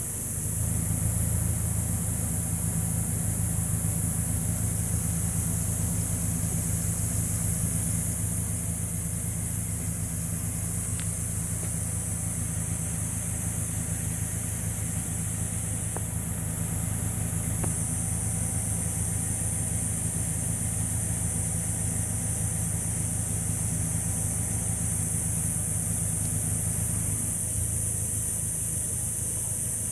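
Car engine idling, a steady low hum that comes in about half a second in, with a steady high hiss over it.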